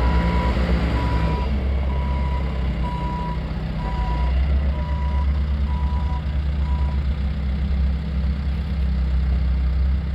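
Diesel engine of a 1996 John Deere 310D loader backhoe running steadily, with its backup alarm beeping about once a second; the beeping stops about seven seconds in while the engine keeps running.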